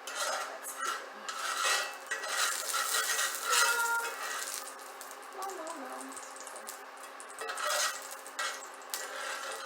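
Metal kitchen utensils clinking and scraping against a pan in an irregular clatter, loudest in the first half and again near the end.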